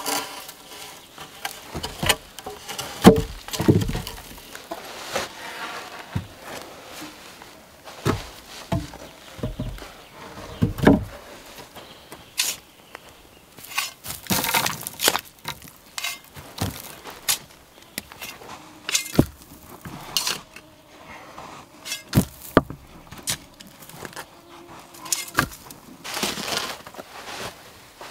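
Hand construction work with dead-wood logs: logs knocking and thudding as they are set into a log wall, with a shovel scraping and sand being thrown in brief rushes. The sound comes as a string of separate knocks with a few longer rushes between them.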